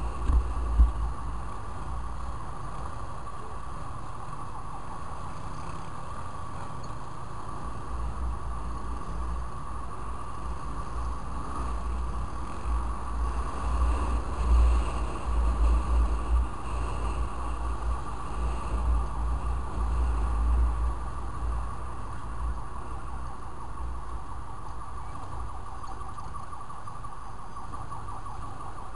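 Yamaha Fazer 250 motorcycle riding through traffic: wind buffeting the microphone in uneven gusts, heavier in the middle stretch, over a steady high hum from the running bike.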